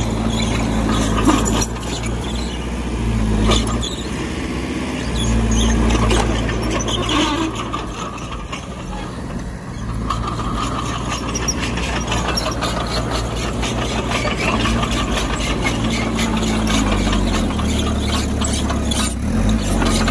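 Crawler bulldozer's diesel engine running under changing load, its note shifting several times, with metallic squeals and frequent clanks from the machine working.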